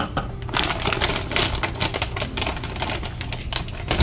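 Quick, irregular clicking and rustling as almond flour is scooped and measured into a mixing bowl.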